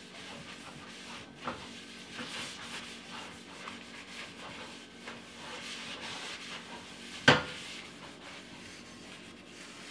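Oil being wiped by hand around the inside of a cast iron pan, a steady soft rubbing scrape, as the pan is given a thin coat of oil to re-season it after washing. A single sharp knock about seven seconds in.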